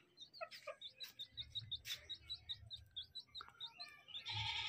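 A small bird chirping in a rapid, steady series of short, identical notes, about six a second. A brief louder noise comes in near the end.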